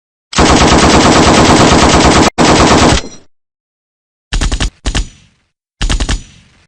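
AK-47 rifle firing on full automatic: a long burst of nearly three seconds with a momentary break near its end, then about a second of silence, then two short bursts about a second and a half apart, each trailing off in echo.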